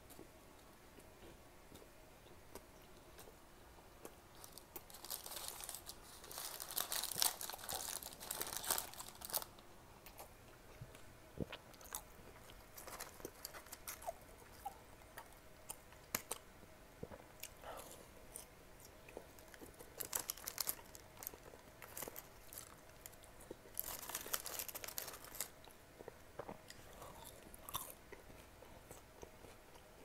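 Crunchy French fries being bitten and chewed close to the microphone. A long bout of dense crunching starts about five seconds in and a shorter one comes near twenty-four seconds, with scattered single crunches between.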